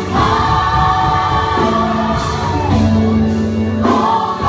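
Gospel choir singing with band accompaniment, sustained sung notes over a steady bass.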